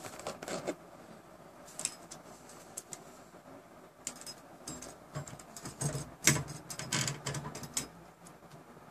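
Scattered small clicks and light metallic rattles of a caliper being handled and set against the printer's X-axis parts, with a cluster of clicks in the second half and the sharpest one about six seconds in.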